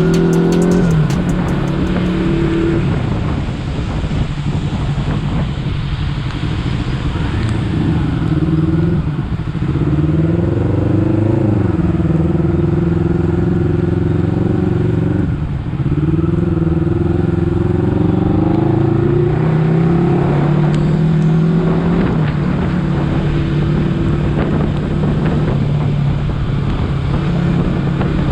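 Honda CBR250RR motorcycle engine under way. Its pitch climbs as the bike accelerates and drops back at each gear change or roll-off, several times, over steady wind and road noise.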